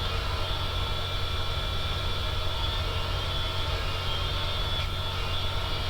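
High-speed rotary tool with a wire wheel running against metal tools: a steady whine over a low hum. It is metal on metal, not a grinding wheel.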